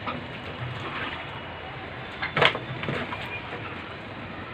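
Steady rain and water noise on a flooded rooftop, with a few light clicks and one loud sharp knock about two and a half seconds in, as a blocked roof drain is being cleared.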